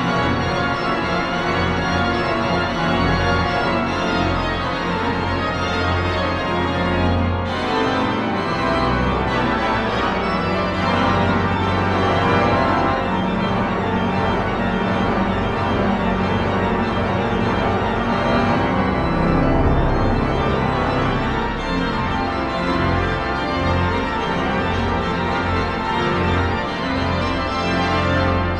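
Large church pipe organ playing a lively, densely textured piece on the manuals over sustained pedal bass notes. The upper notes break off for a moment about seven seconds in.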